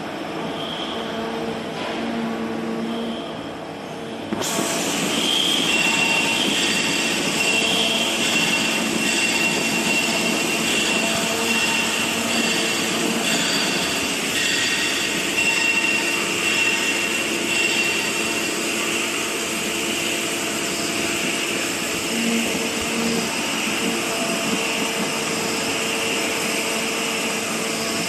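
CNC milling machine's spindle and end mill cutting into an aluminium extrusion die blank under flood coolant: a steady machining noise with a high whine. About four seconds in it suddenly grows louder and hissier.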